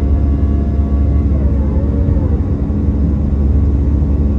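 Cabin noise of an Airbus A320-214 climbing just after takeoff, heard from a window seat beside the wing and its CFM56 turbofan engine. It is a loud, steady low rumble with several steady humming tones from the engines at climb power.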